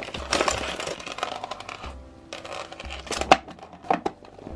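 Crinkling, clicking and tearing of plastic toy packaging as a RainbowCorns surprise pack is opened by hand, with quiet background music.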